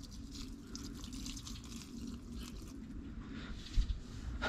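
Water pouring from a plastic watering can's spout into a potted rosemary, a soft steady trickle and splash onto the soil, with a light knock near the end.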